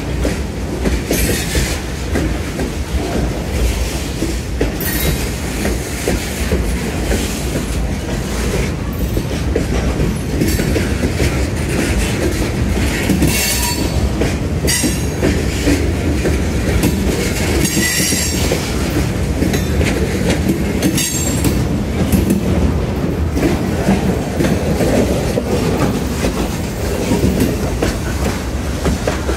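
Freight cars (covered hoppers and boxcars) rolling past close by: a steady rumble of steel wheels on rail with clickety-clack over the joints. Brief high-pitched wheel squeals cut in several times.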